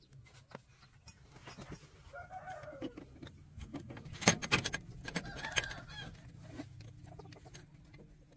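A rooster crowing, one arching call about two seconds in and more calling a little later, over sharp clinks of a metal tool on the truck's steering parts about four seconds in.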